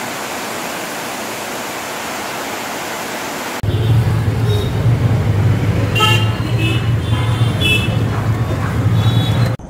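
A steady hiss, then about three and a half seconds in a sudden change to road traffic: a low engine rumble with several short car horn toots.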